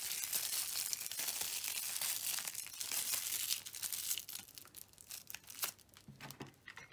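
Aluminium foil crinkling steadily as it is wrapped and squeezed around a trunk form. After about four seconds it thins to a few scattered crackles.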